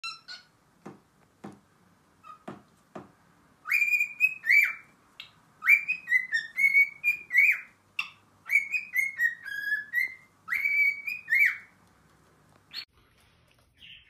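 Cockatiel whistling: after a few short clicks, it sings several quick runs of whistled notes, each note sliding up and then holding, and ends with a single short chirp.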